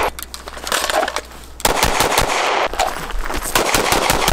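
Rapid strings of 9 mm pistol shots from a SIG M18. The shots come in quick succession, with a short lull about a second in, then fast firing resumes and runs on.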